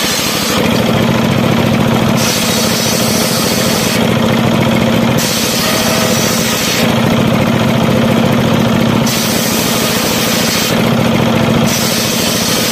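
Belt-driven circular sawmill blade ripping mahogany boards, with the 24 hp diesel engine that drives it running steadily underneath. The high cutting noise comes and goes in repeated passes a couple of seconds apart as boards are fed through.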